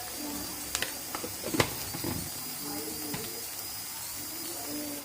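Onion and spices frying in hot oil in a pan with a steady sizzle, and a few light knocks against the pan about one and one-and-a-half seconds in.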